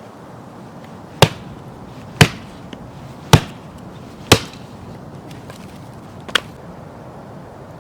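Wood being chopped with a blade: four sharp strokes about a second apart, then a weaker fifth.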